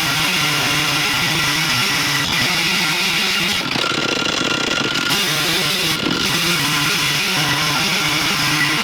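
Stihl MS 460 two-stroke chainsaw running at high revs in an Alaskan chainsaw mill, ripping a slab lengthwise from a cherry log; its pitch wavers slightly as the load changes.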